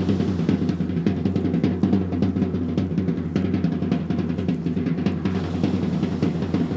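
Live percussion: drums beaten in a fast, dense, steady rhythm.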